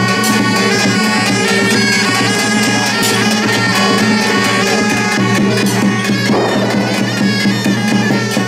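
Taiwanese temple procession music: a reed wind instrument, most likely a suona, playing a melody over drums and cymbals.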